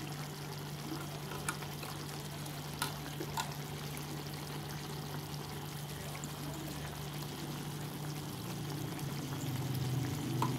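Chicken simmering in curry sauce in a wok: a steady soft bubbling over a low hum, with a few light clicks in the first few seconds, growing a little louder near the end.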